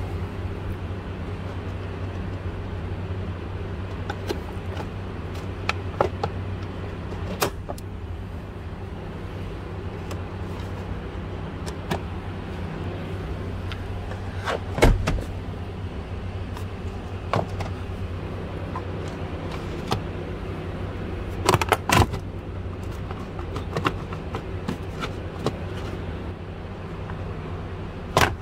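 Scattered clicks and small knocks from hand tools and fasteners being worked at a car's steering column, over a steady low hum. The loudest knocks come about halfway through, as a quick pair a little later, and once more near the end.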